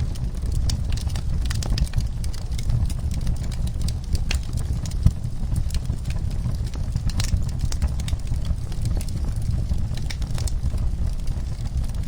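Wood fire in a fireplace crackling and popping irregularly over a steady low rumble of flames, with one sharper pop about five seconds in.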